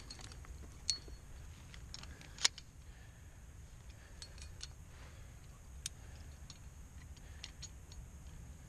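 Metal climbing gear (carabiners and protection racked on a harness) clinking in scattered sharp clicks as the climber moves. The loudest clink is about two and a half seconds in.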